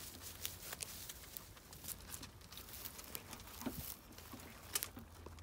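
Zwartbles rams eating feed from a metal trough: faint, irregular crunching and clicking of chewing and muzzles working the feed, with a couple of sharper clicks about five seconds in.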